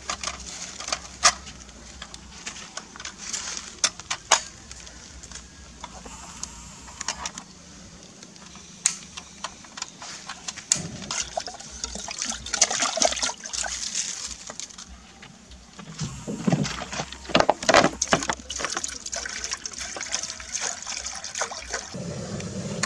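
Water sloshing and splashing in an aluminium cooking pot as it is rinsed by hand, among sharp clicks and knocks as a butane canister is fitted into a portable cassette gas stove. Near the end a steady low rushing starts as the pot sits on the lit gas burner.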